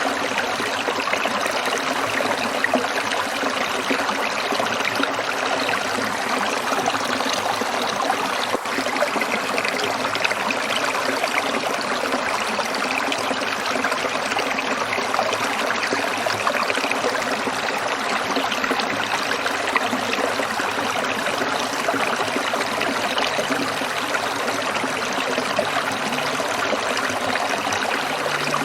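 Stream water trickling and splashing steadily over stones, a continuous rushing hiss.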